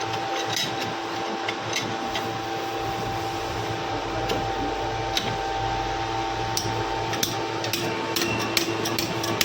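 Scattered light metallic clicks and taps of hand tools on a car AC compressor while its clutch-pulley bearing is being removed, coming more often near the end, over a steady hum.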